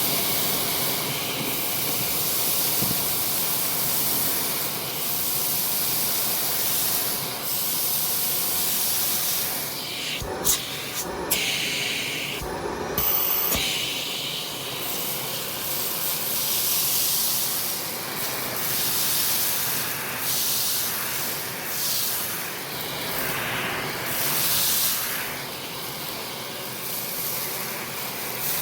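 Vacuum cleaner running steadily while sucking up spilled rice from a rug: a continuous airy rush that rises and falls as it is pushed back and forth, with a few sharp clicks about ten to thirteen seconds in.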